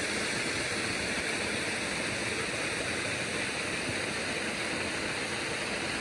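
Steady rush of river water pouring over a low diversion dam.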